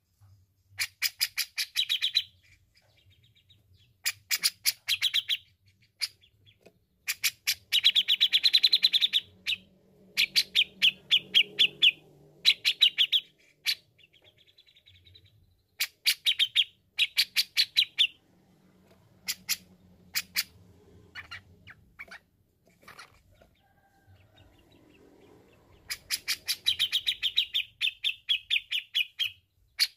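Grey-cheeked bulbul (cucak jenggot) singing in repeated bursts of fast, chattering notes, each burst lasting up to about two seconds, with short pauses between.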